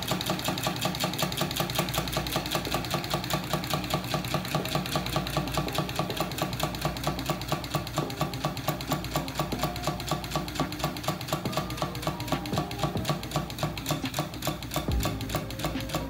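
Homemade tin-can Stirling engine running, its wire crankshaft and linkages clattering in a rapid, even rhythm as it turns the small generator.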